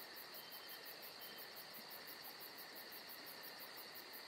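Faint insect chirping, a rapid, even pulse of about seven chirps a second over a steady high hiss.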